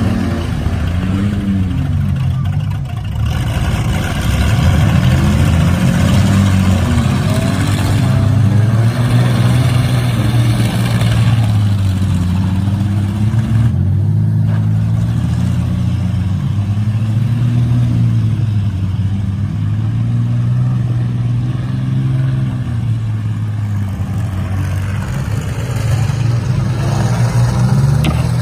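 Several demolition-derby minivan engines revving at once, their pitches rising and falling over one another as the vans accelerate and push through deep mud.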